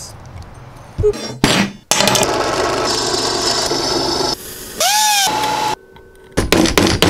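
Workshop montage of metalworking sounds: a couple of sharp knocks, then a drill press running a step drill bit through steel plate for about two seconds. Near the end comes a short squeal that rises and falls in pitch, followed by more clatter.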